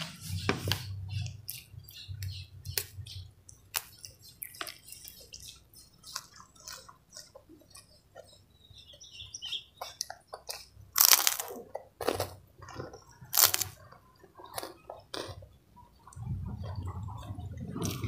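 Close-up eating sounds: a person chewing and crunching a crispy white kerupuk cracker by hand, with many small crackles and three loud, sharp crunches about eleven to thirteen and a half seconds in. A low steady sound sets in near the end.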